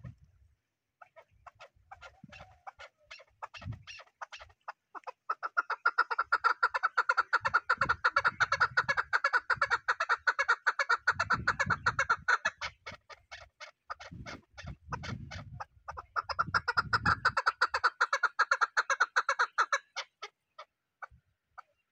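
Chukar partridge calling: a long run of rapid, repeated clucking notes. The run builds up, goes on loudly for several seconds, dips in the middle, comes back loud, then tails off near the end.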